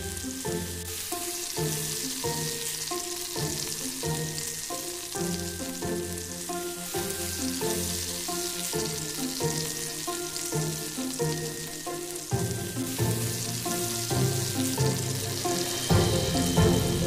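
Egg-coated potato fritters (perkedel kentang) sizzling steadily as they fry in hot oil over medium-low heat. Background music plays over the frying and grows louder near the end.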